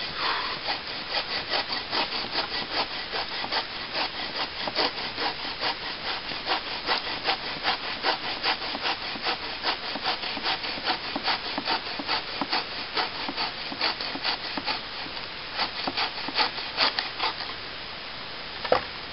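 A takedown bow saw cuts through a mossy fallen branch in quick push-pull strokes, about three or four rasps a second, with a short pause about fifteen seconds in. A single sharp knock comes near the end.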